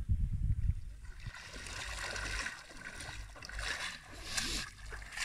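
Footsteps wading through shallow lake water, splashing and sloshing with each stride. Wind rumbles on the microphone at the start.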